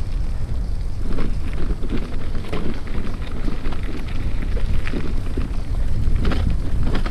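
Wind rumbling on the microphone with irregular crackling from a bicycle's tyres and frame rolling over a rough gravel trail.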